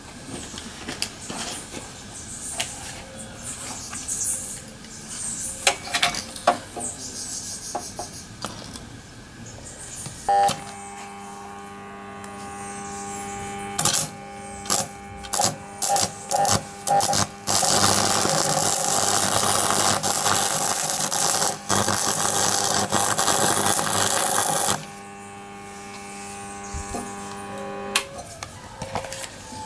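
A steady electrical hum starts about a third of the way in. Short bursts of crackling sparks follow, then several seconds of loud, continuous crackling hiss while sparks fly. The hum cuts off near the end.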